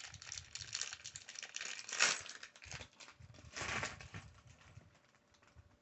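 Plastic parts bag of LEGO pieces crinkling as a hand rummages through it, with louder rustles about two seconds in and again near four seconds, then dying away near the end.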